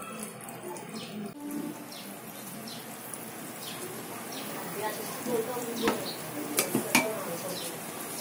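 Sugar syrup boiling in an aluminium pot with a steady bubbling sizzle. From about five seconds in, a few sharp knocks against the metal pots as the syrup is worked by hand in a pot of water.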